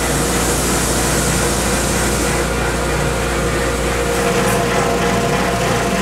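Wide drum sander running with its dust collector while a wooden countertop slab is fed through: a loud, steady machine hum with a high hiss that eases about two and a half seconds in.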